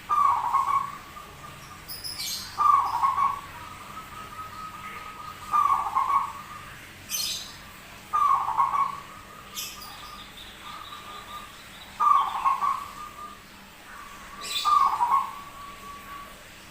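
Zebra dove (perkutut) cooing: six short coo phrases about every two and a half seconds, in a song its keeper calls unusual. Brief high chirps come in between.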